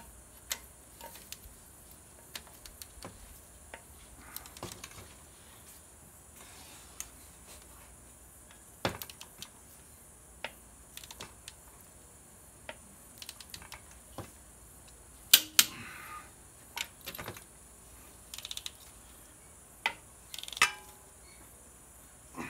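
Cylinder head bolts being tightened with a ratchet-head torque wrench: scattered ratchet clicks and the metallic clink of the socket being set on and taken off the bolts. A few sharper metal clicks stand out about fifteen and twenty seconds in.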